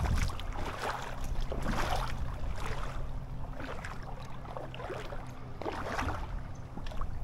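Boat engine running steadily at low speed, with water splashing against the hull several times.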